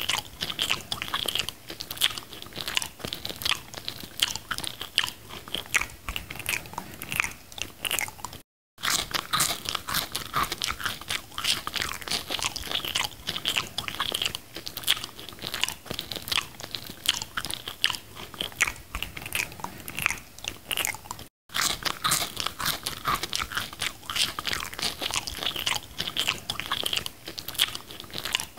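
Mouth sounds of chewing and biting into a sesame-seed burger, close to the microphone: a steady stream of wet crackles and smacks. The sound cuts out completely twice, briefly, about a third and three quarters of the way through.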